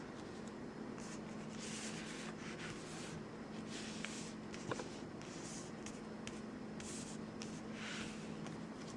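Trading cards rubbing and sliding against one another as they are handled, soft irregular swishes with a few light clicks.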